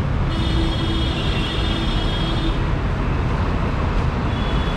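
Busy street traffic: a steady rumble of vehicle engines and road noise. A high, steady tone sounds for about two seconds starting just after the start, and again briefly near the end.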